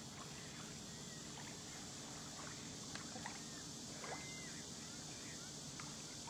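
Small waves lapping gently at a muddy lake shoreline under a steady faint hiss, with a few short, faint chirps and ticks scattered through.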